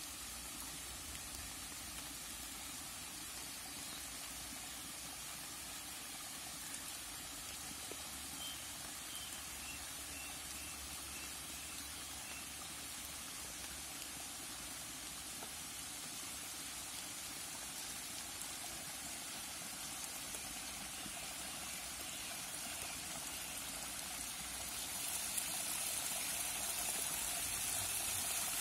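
Water running over the rocks of a small forest creek, a steady rushing that grows louder over the last several seconds as the flow rises with a flash-flood surge.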